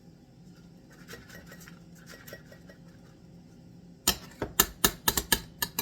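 Kitchen utensils and dishes being handled: faint light clinks, then from about four seconds in a quick run of sharp clicks and knocks lasting a second or two.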